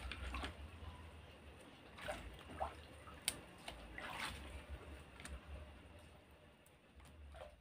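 Faint, scattered clicks and rustles of green chili peppers being handled and dropped into a plastic colander, over a low rumble, growing quieter toward the end.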